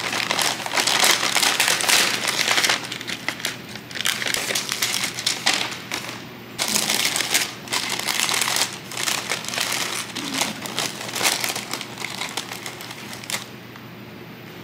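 Paper sandwich bag and paper wrapper crinkling and rustling as a sandwich is unwrapped by hand, in bouts with short pauses, dying down near the end.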